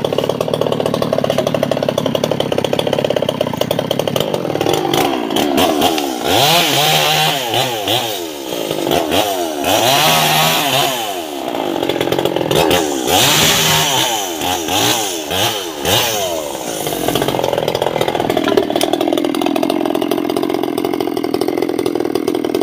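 Two-stroke chainsaw idling, then revved up and down in several bursts as it cuts sengon laut logs, settling back to idle near the end.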